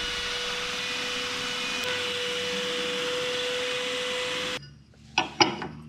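Plunge router running at a steady high pitch while shaving a shallow 1.15 mm pass off the face of a plywood rudder head. It stops abruptly about four and a half seconds in, followed by a few light knocks.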